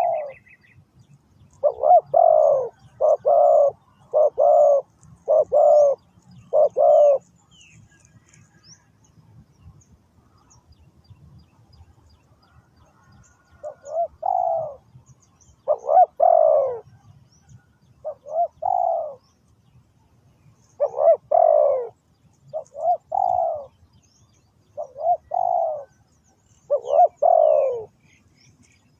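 Spotted dove cooing, low notes repeated in phrases: five coos in quick succession, a pause of several seconds, then further coos in pairs and short runs. Faint high chirps of small birds can be heard in the background.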